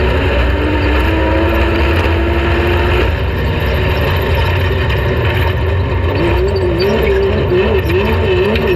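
Off-road race vehicle's engine at speed under throttle. Its revs climb steadily for about three seconds and drop abruptly, then rise and fall quickly over and over near the end, over a heavy low rumble.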